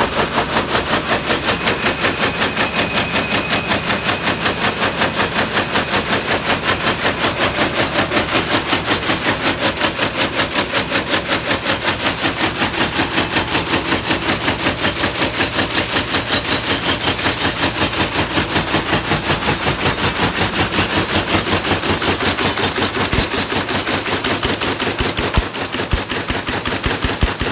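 Sulzer P7300 projectile weaving machine running at speed: a fast, even mechanical clatter with one sharp beat for each weft pick, repeating several times a second.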